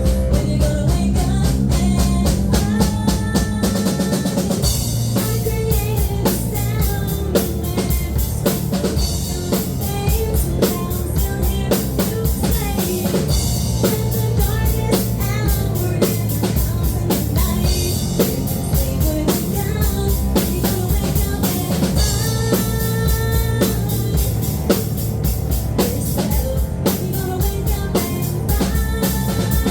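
A live rock band playing a song, with the drum kit keeping a steady beat of bass drum and snare over sustained bass notes and other instruments.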